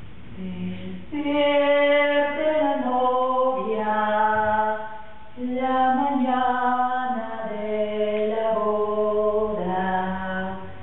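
Unaccompanied singing of a slow melody in long held notes, breaking off briefly about five seconds in.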